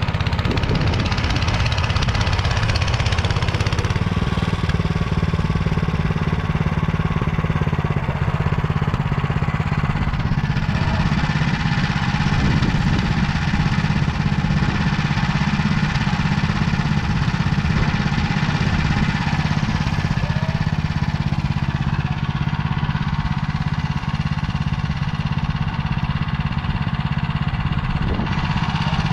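Engine of a Motor Sich walk-behind tractor running steadily while it drives a rotary tiller through the soil.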